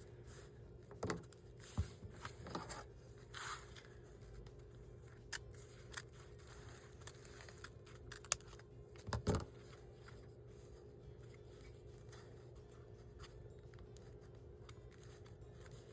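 Paper and card being handled while gluing: scattered rustles, scrapes and light taps during the first ten seconds or so, with the loudest knocks about nine seconds in. A faint steady hum lies underneath.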